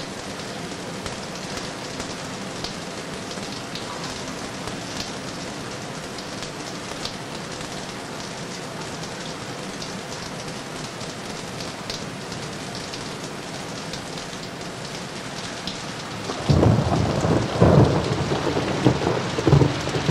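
Shower running: a steady hiss of water spraying and splashing on tile, with small crackling drips. About sixteen seconds in, a louder, deeper, uneven rumbling sets in.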